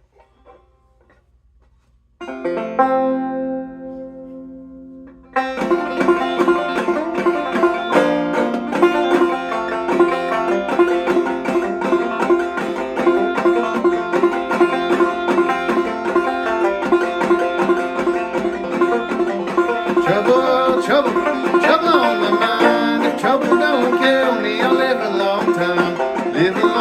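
Banjo played clawhammer style. About two seconds in, a single chord is struck and left to ring and fade; a few seconds later the tune starts in a steady, even rhythm of brushed and plucked notes.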